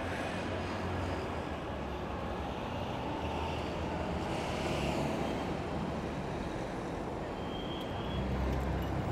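Steady city street traffic noise: the low rumble of passing motor vehicles, swelling a little twice as vehicles go by.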